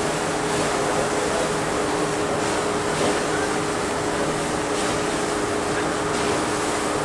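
Steady drone of a cruise ship's machinery on its top deck, holding two steady tones, over a constant rushing noise.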